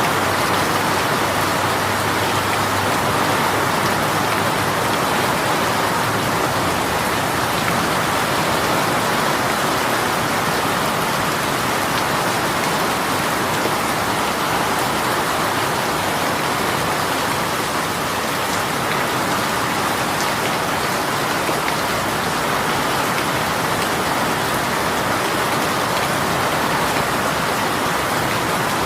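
Steady heavy rain shower pattering on a surface, an even wash of drops with no letup.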